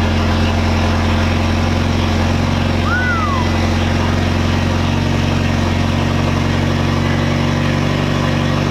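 Mitsubishi Lancer Evolution X's turbocharged four-cylinder engine idling steadily, heard from inside the cabin. A brief high chirp sounds about three seconds in.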